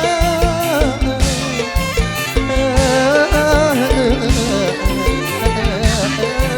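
Live Isan mor lam band playing an instrumental passage between sung lines: a wavering lead melody with vibrato over a steady drum beat and bass.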